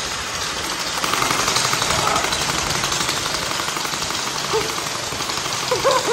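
Electric gel ball blaster firing on full auto, a fast even mechanical rattle from its motor and gearbox. Voices come in near the end.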